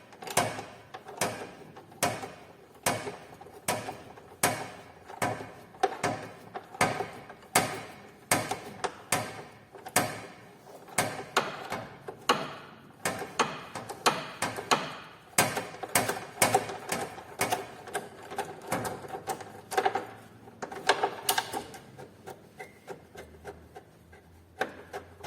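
Ratchet wrench clicking with each back-swing, about two clicks a second and quicker in the middle, as a tight bolt on the Chery QQ's front control arm is backed out.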